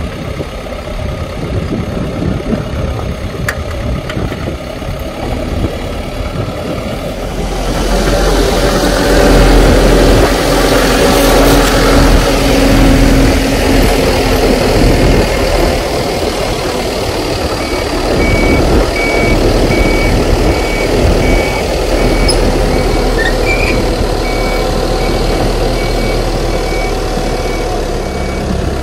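PistenBully snow groomer's diesel engine running, growing louder about seven seconds in. Its reversing alarm beeps steadily through the last third.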